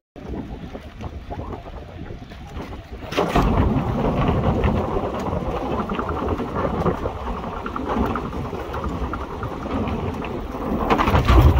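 Wind buffeting the microphone and the tyre rumble of a recumbent bicycle rolling along a paved trail. It gets louder and deeper about three seconds in, around where the path becomes a footbridge.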